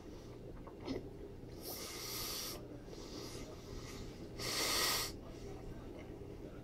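A person breathing hard through the nose, two long huffs about two and a half seconds apart, the second the louder, from the burn of a mouthful of horseradish. A short click about a second in.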